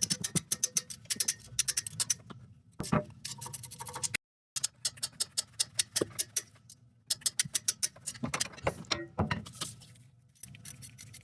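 Hand ratchet clicking rapidly, about seven clicks a second, in several runs broken by short pauses, as it works bolts loose.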